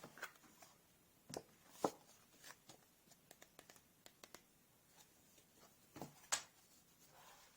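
Faint scattered taps and ticks of a pen on a drawing surface, with a quick run of small ticks in the middle and three louder knocks, about 1.3 s, 2 s and 6.3 s in.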